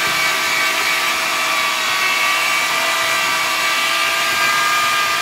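Handheld electric drill with a paddle mixer running at steady speed with a constant whine, churning a bucket of wall putty paste.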